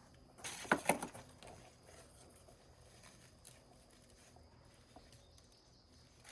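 Packing material being handled: a brief burst of rustling with two sharp clicks a little under a second in, then faint handling noise.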